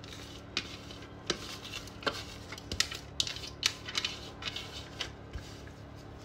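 Cooked rice being tipped from a perforated aluminium colander into a dough-lined pot, with a series of irregular light clinks and knocks from the metal colander as it is shaken and tilted.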